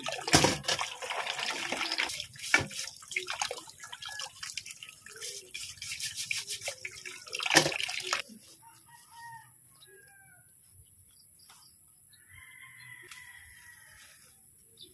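Tap water splashing into a steel basin while horn snails are scrubbed with a plastic brush, for about eight seconds. It then drops to a much quieter outdoor background with a steady high whine and a few chicken calls, including one longer crow-like call near the end.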